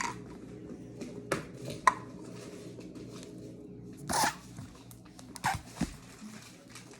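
Handling noises: a few short knocks and one longer rustle about four seconds in, over a faint steady hum.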